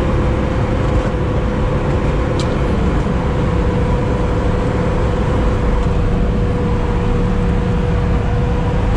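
Sherp amphibious ATV's engine and drivetrain running steadily as it drives through icy water, heard from inside the cab: a constant low drone with a steady whine over it.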